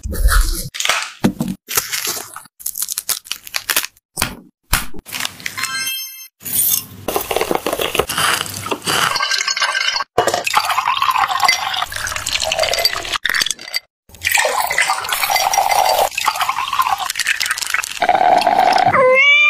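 Drink-making sounds: a knife cutting into a pomegranate with short clicks and taps, then ice cubes clinking into a glass and liquid pouring over them in long stretches.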